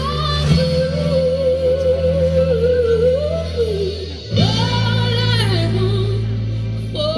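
A pop ballad with a woman singing long held, wavering notes over steady sustained chords. The music dips briefly about four seconds in, then swells again.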